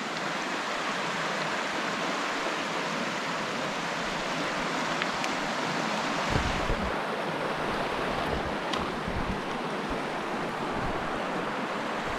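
A fast, shallow mountain creek rushing steadily over rocks, running high with spring snowmelt. A brief low rumble, like a gust or a bump on the microphone, comes about six seconds in.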